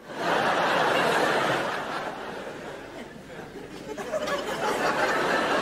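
Studio audience laughter breaking out suddenly, easing off in the middle and swelling again near the end.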